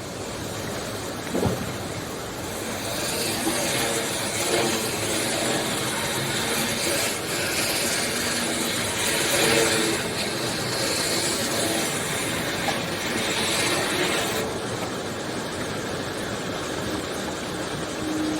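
A loud, steady rushing noise, with a faint knock about a second and a half in.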